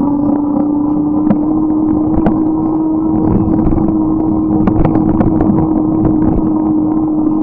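Riding noise from a moving bike: a steady hum that rises slightly in pitch, over a loud rushing of wind and road noise, with a few scattered clicks.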